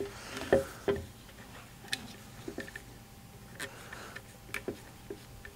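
Scattered light plastic clicks and handling rustle as a nylon zip tie is wrapped around a Kirby vacuum's corrugated fill tube and threaded into its lock.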